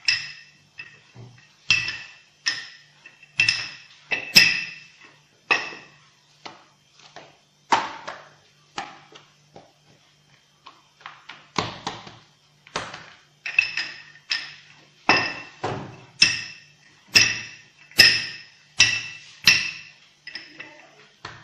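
Wooden rolling pin rolling out pizza dough on a granite countertop, knocking against the counter about once a second with sharp, ringing clacks. The knocks thin out for a couple of seconds about halfway through.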